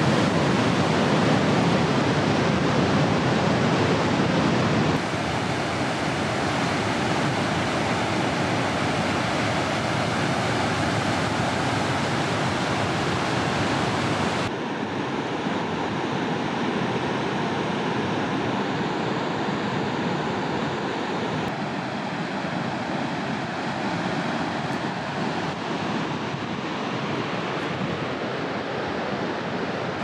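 Steady roar of a waterfall's rushing water. It drops abruptly in level about 5 seconds in and again about halfway through, with a further change in tone a little later.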